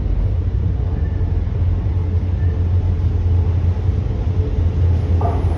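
Steady low rumble inside a Docklands Light Railway train carriage.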